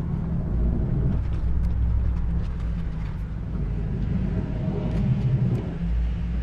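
2016 Toyota Tundra pickup's V8 engine running at low speed as the truck is driven a short way, a steady low rumble that swells a little now and then.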